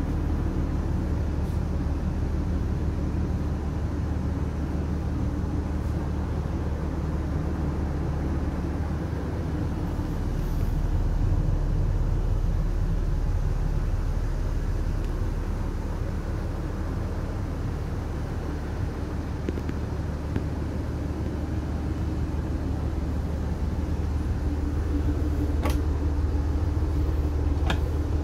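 A steady low machine hum with a rumble running underneath, and two sharp clicks near the end from a cabinet door latch being opened.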